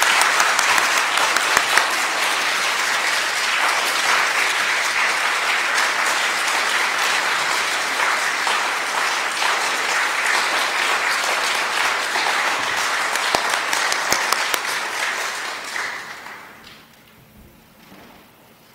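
Congregation applauding, a dense patter of many hands clapping, which dies away a couple of seconds before the end.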